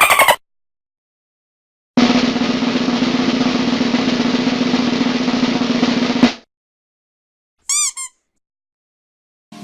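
Snare drum roll lasting about four seconds, swelling into a final louder hit. A little later a rubber duck squeaks twice.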